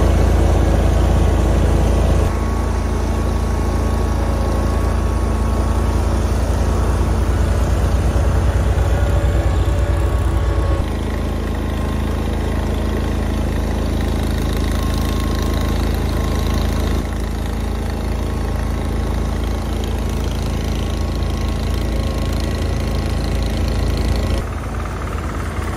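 Small garden tractor engines running steadily, heard in several back-to-back clips: the engine note and loudness change abruptly about 2, 11, 17 and 24 seconds in.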